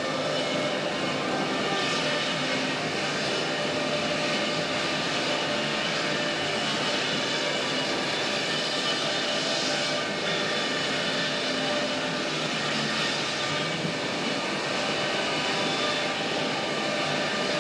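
Pallet mill machinery running steadily: a loud, even drone of electric motors and spinning saws with several held tones, no distinct cuts standing out.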